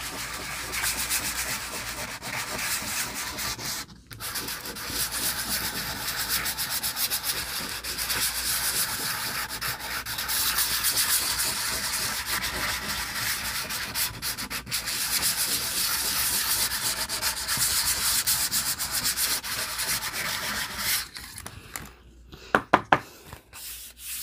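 Nail file rapidly buffing back and forth over a glossy strip of card, sanding off its shine to give a surface to glue to. The rubbing stops a few seconds before the end, followed by a few light taps.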